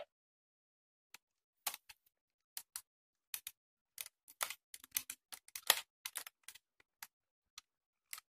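Hard plastic parts of a DX Minityra dinosaur toy clicking and tapping as it is handled by hand: many short, irregular clicks, coming closer together past the middle.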